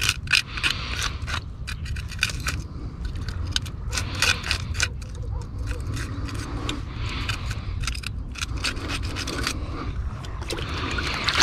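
Scales being scraped off a scup (porgy) in quick, repeated short strokes, the scales crackling as they come away, over a faint low rumble.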